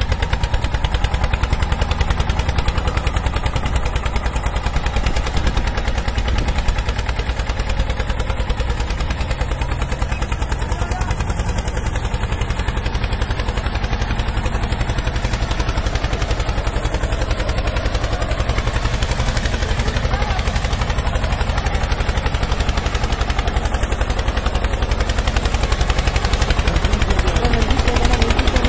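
Tractor-style engine running steadily with a fast, even knocking beat over a low hum, getting a little louder near the end.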